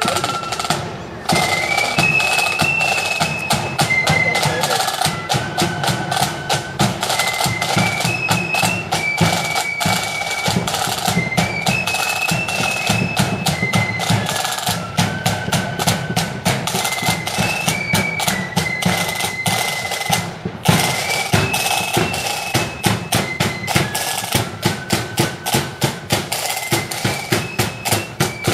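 Marching flute band playing a tune: a high melody line over side drums and a bass drum.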